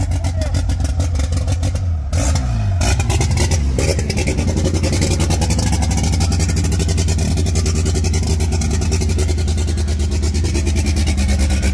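A modified VW Gol hatchback's engine with a loud exhaust is revved. The revs drop about two to four seconds in, then it runs steady with a rapid, pulsing exhaust note as the car pulls away.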